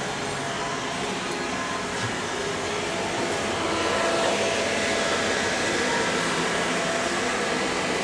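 Machinery running: a steady whir and hum with several faint steady tones, a little louder about four seconds in.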